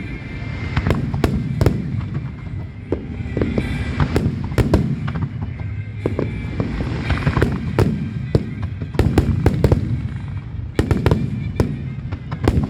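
Aerial fireworks display: a rapid, irregular barrage of shell bursts, each a sharp bang with a low rumbling tail, with brief stretches of crackling hiss between the volleys.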